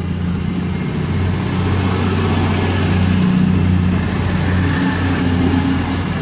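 Class 222 Meridian diesel-electric multiple unit pulling away, its underfloor engines humming steadily under a thin high whine that rises slowly in pitch as it accelerates.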